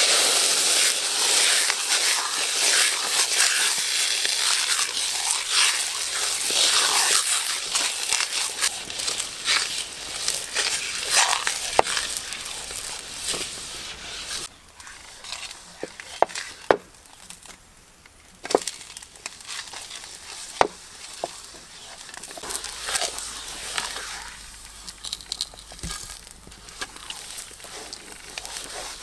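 A slab of raw pork belly sizzling loudly as it hits a hot carbon-steel wok, starting suddenly. About halfway through the sizzle drops away and the wood fire under the wok crackles, with several sharp pops, before a softer sizzle returns near the end.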